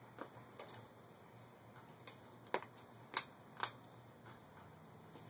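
Sharp metal clicks and clinks of a wrench working at a bicycle's crank: a few scattered ticks, then four louder ones over about a second and a half in the middle.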